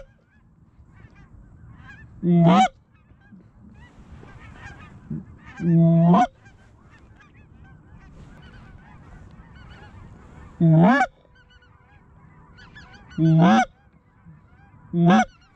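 Goose call blown by a hunter: five loud, short honks a few seconds apart, each breaking sharply upward in pitch. Behind them is the faint, constant calling of a distant flock of geese.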